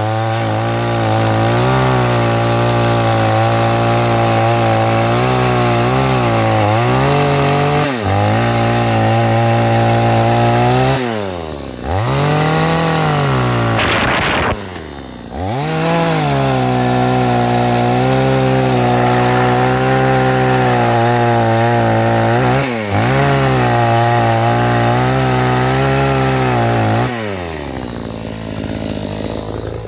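Best Green chainsaw running at speed and cutting into stacked firewood logs. Its pitch sags and recovers several times as the chain bites into the wood, with brief rev-ups in between, and near the end it slows and dies down.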